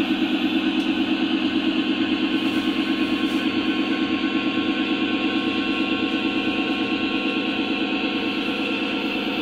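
Lionel O-gauge model train running along three-rail track, a steady mechanical hum with an even pulse of about six beats a second, easing slightly near the end as the train moves off.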